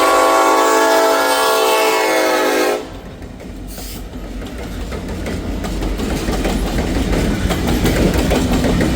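Diesel locomotive air horn sounding one long, loud blast that cuts off about three seconds in. The train's wheels then roll and clatter over the rails, growing louder toward the end.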